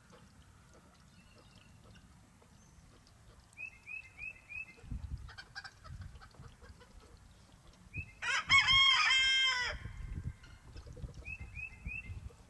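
Rooster crowing once, a single crow of about a second and a half a little past the middle, the loudest sound. Before and after it come short high chirps in quick runs of three or four.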